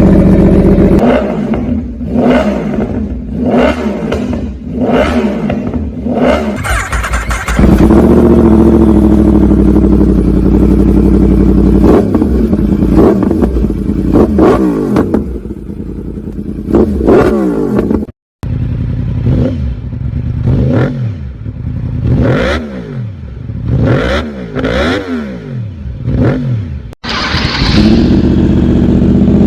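Yamaha YZF-R1 inline-four engine revved through aftermarket exhausts: repeated quick blips whose pitch climbs and falls back, with a longer held rev in between. The sound jumps abruptly twice to a different bike and exhaust.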